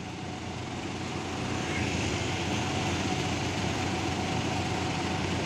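Road traffic in a jam: heavy trucks idling in a queue, a steady low engine rumble that grows a little louder over the first two seconds.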